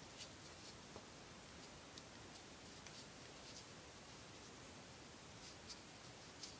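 Near silence with steady hiss and a few faint, scattered ticks and scratches of cord rubbing and slipping through fingers as a knot is tightened by hand.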